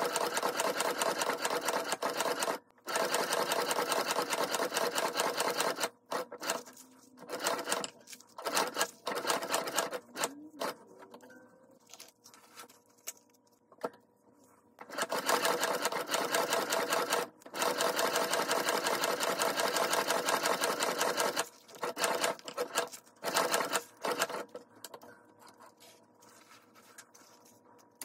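Hand-cranked sewing machine stitching fabric: a fast, even clatter of the needle mechanism in long runs, broken by short stop-start bursts and brief pauses.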